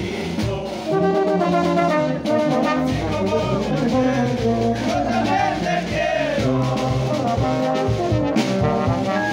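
Brass band playing live, with trombones, trumpets, saxophones and clarinet over a bass drum keeping the beat.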